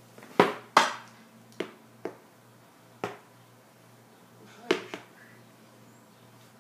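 Rattan sword striking a padded practice pell: about seven sharp, separate hits at uneven spacing, the two in the first second the loudest, with a quick double hit near the end.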